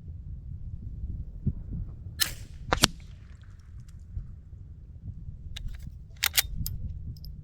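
Two sharp gunshot reports from the Mark II rifle about half a second apart, the first trailing off in an echo, then a quick series of short clicks about six seconds in, over a steady low rumble of wind.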